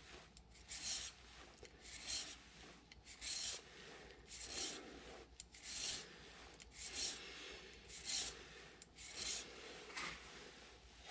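Hand filing of a small lathe gear key with a flat file, in short scraping strokes about once a second. The key is being narrowed bit by bit to fit a gear's smaller keyway.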